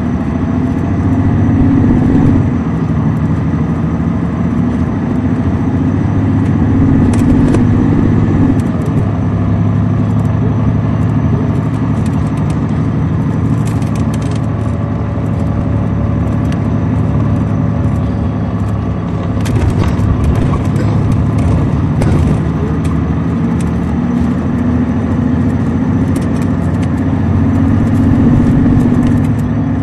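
Caterpillar C13 diesel of an MCI D4500CL coach running under way, its drone stepping down in pitch twice in the first ten seconds and climbing again near the end. Short rattles and clicks come through now and then.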